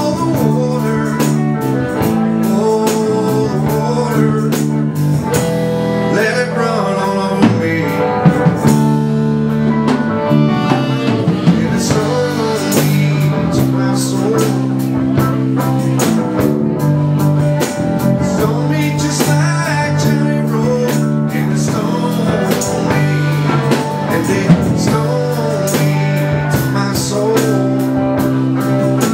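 Live band playing a blues-rock number, with guitar and drum kit.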